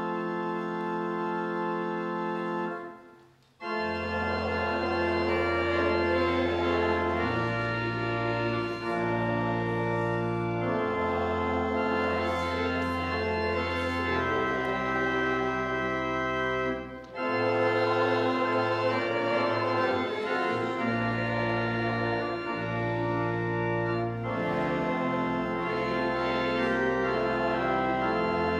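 Church organ playing a hymn in sustained chords over a steady bass line, the chords changing every second or two. It breaks off briefly about three seconds in, as at the end of a line or verse, and pauses again for a moment near the middle.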